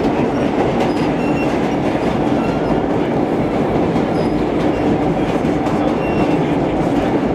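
Vintage R1–R9 subway cars running through a tunnel, heard from inside the rear car: a steady rumble of steel wheels on rail, with a few brief faint squeaks.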